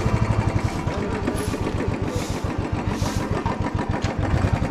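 Royal Enfield Bullet 350 Standard's single-cylinder engine running at low revs as the bike rolls slowly, with an even, rapid thump.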